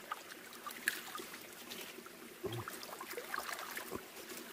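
Shallow mountain stream trickling while napa cabbage leaves are rinsed in it by hand, with scattered small splashes and drips.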